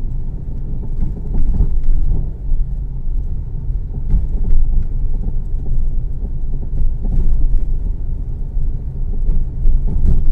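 Honda Civic being driven, heard inside the cabin: a steady low road and engine rumble that swells now and then, with a few faint knocks or bumps from the suspension.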